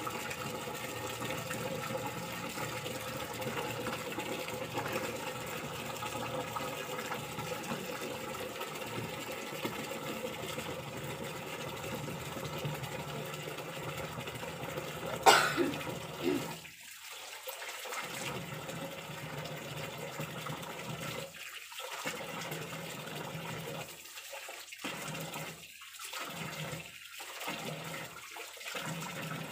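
Water pouring from a tap into a half-full plastic drum, a steady splashing. About halfway through there is one sharp knock, the loudest sound, and in the second half the splashing cuts out briefly several times.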